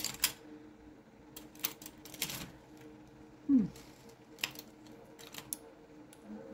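Scattered light clicks and clinks of small sculpting tools being handled and shifted while a fine-tipped ball tool is searched for, over a faint steady hum. A brief falling vocal sound comes about halfway through.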